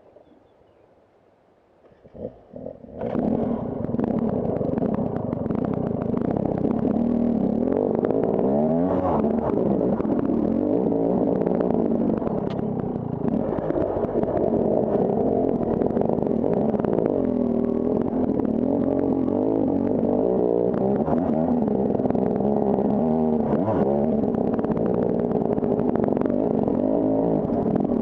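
KTM Freeride enduro motorcycle engine being ridden, its pitch rising and falling again and again with the throttle. It comes in about three seconds in, after a short near-silent gap.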